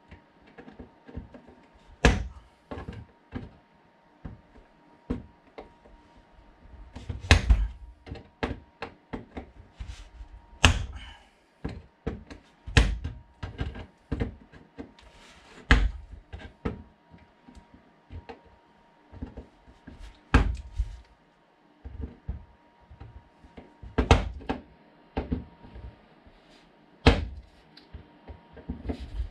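Pliers prying glued-down model railway track up from the baseboard: irregular sharp clicks, ticks and small snaps of plastic sleepers and track coming loose, with about eight louder cracks spaced a few seconds apart.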